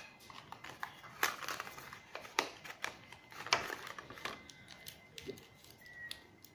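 Rustling and crinkling of plastic wrapping in short irregular bursts, with small clicks, as a set of wired earphones is unpacked and its cable handled.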